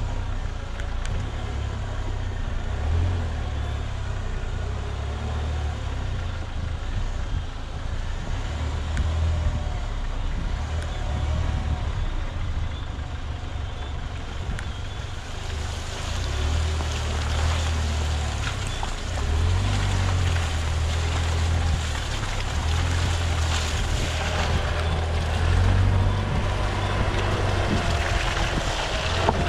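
Land Rover Freelander 2 driving on a dirt track, heard from a microphone beside the front wheel: tyre noise under heavy wind rumble. From about halfway, the tyres crackle and spatter more as they run through wet mud and grit.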